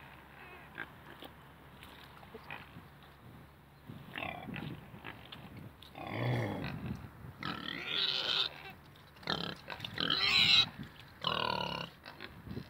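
Mangalica pigs grunting. After a few quiet seconds the calls come in short bursts, growing louder and higher-pitched in the second half.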